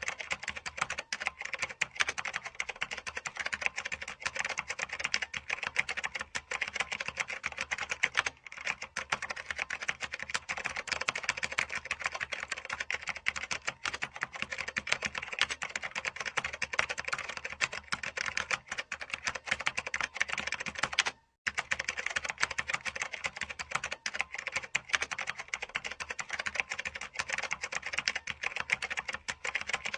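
Fast, continuous typing on a computer keyboard: a dense stream of key clicks that stops for a moment about two-thirds of the way through, then carries on.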